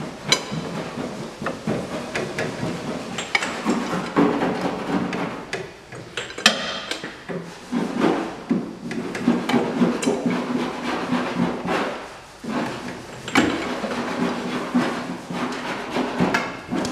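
Jaguar E-Type's XK straight-six being turned over by hand with its spark plugs out: a busy run of metallic clicks and rattling, in three spells with short pauses between them.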